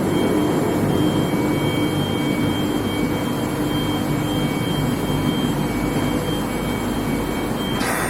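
Steady roar of running industrial machinery, with a thin high whine that drops in and out and a lower hum underneath, and a short hiss near the end.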